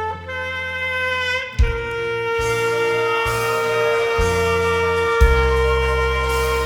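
Alto saxophone playing the melody of a Korean ballad over a backing track with bass and drums. About a second and a half in it settles on one long held note that lasts to the end, with two accented bass-and-drum hits underneath.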